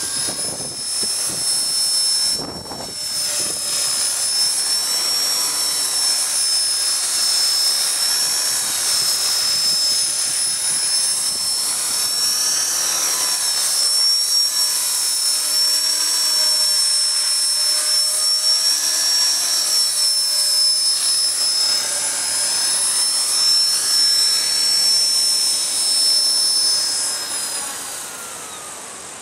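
HK-450 electric RC helicopter running, a steady high-pitched whine from its motor and rotor that wavers slightly in pitch. The whine falls away over the last couple of seconds as the rotor spools down.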